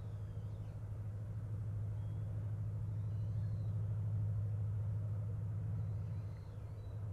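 Steady low engine drone, swelling slightly toward the middle and dipping briefly near the end.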